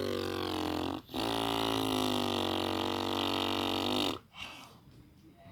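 A hoarse voice holding two long, steady calls, a short one and then one of about three seconds that breaks off about four seconds in. The hoarseness comes from a cough.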